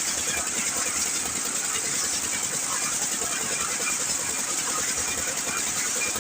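Engine of a mini concrete-mixer lift (dhalai) machine running steadily, with a fast, even mechanical chatter and a constant high hiss.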